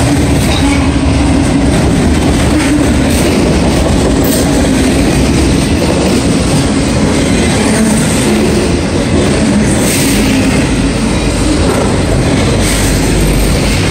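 Autorack freight cars rolling past close by: a loud, steady rumble of steel wheels on rail, with a few sharper clacks.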